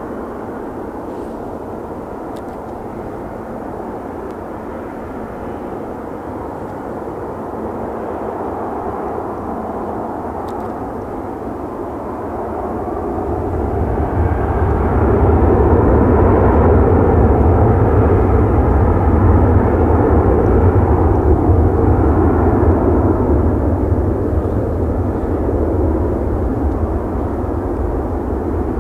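Four Rolls-Royce Trent 970 turbofans of an Airbus A380-841 running at low power as the jet rolls slowly by. The steady engine noise and deep rumble grow louder about twelve to fifteen seconds in as the aircraft passes closest, then ease off slightly.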